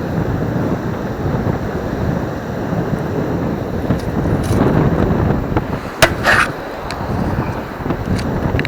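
Surf and wind buffeting the microphone in a steady rumble, with a sharp knock and short rattle about six seconds in and a few lighter clicks.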